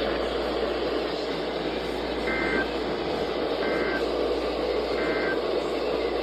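Steady radio static hiss from a NOAA Weather Radio receiver, with three short two-tone digital data bursts about 1.3 seconds apart starting about two seconds in: the EAS/SAME end-of-message code that closes the alert.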